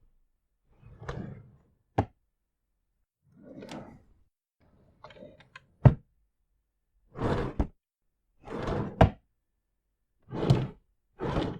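Drawers sliding open and shut one after another: about seven short sliding runs of roughly half a second each, most ending in a sharp knock as the drawer closes.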